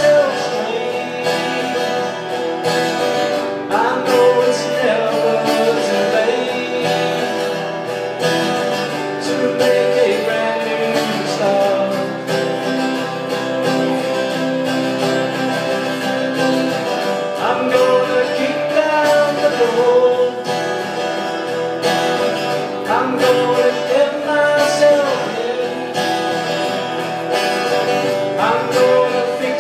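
Two acoustic guitars played live together as a duo, with a man singing over them in places.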